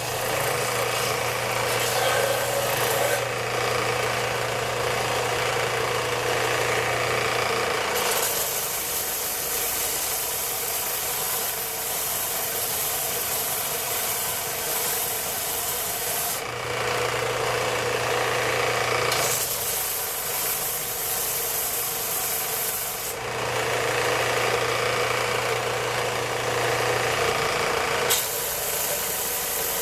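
Electric woodworking tool shaping maple: a low motor hum, broken by three long stretches of harsh rasping noise as the wood is cut or sanded.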